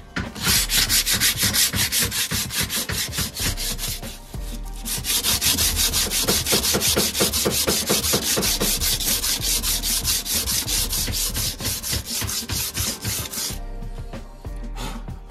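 Sandpaper rubbed by hand over an aluminium alloy wheel rim in quick back-and-forth strokes. It pauses briefly about four seconds in and stops near the end.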